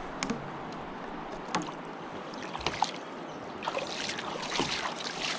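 A fishing kayak's hull knocking and scraping over a submerged log while river water splashes and washes along its side, over a steady hiss of moving water. Scattered single knocks come first, then a longer run of scraping and splashing near the end.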